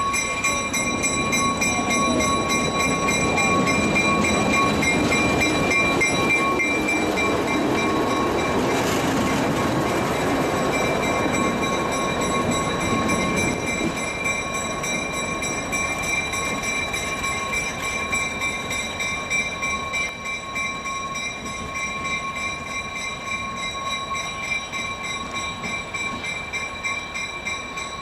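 Diesel locomotive running as it moves off along the track: a dense engine rumble with a steady high whine. The rumble is strongest at first and eases after about halfway as the locomotive draws away.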